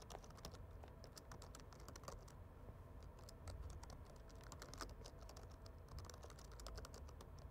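Faint, irregular keystrokes of a computer keyboard being typed on.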